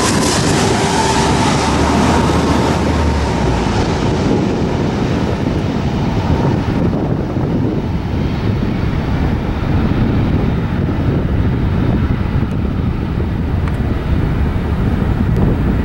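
Jet noise from an SAS Airbus A330's two turbofan engines as it passes low overhead on final approach, a loud rushing roar with a faint whine. After about seven seconds the high end drops away and it turns to a duller, lower rumble as the jet moves off toward the runway.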